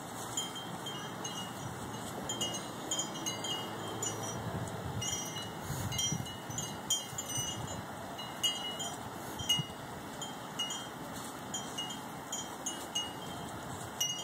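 Wind chimes tinkling: many short, high ringing notes scattered irregularly, with soft gnawing from a Boston terrier chewing on an apple.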